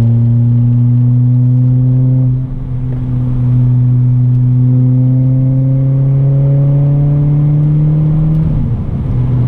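Renault Clio 197's 2.0-litre four-cylinder engine accelerating through a decat, straight-piped full exhaust, heard from inside the cabin. The engine note climbs, dips briefly about two and a half seconds in, then rises steadily again until it falls away near the end.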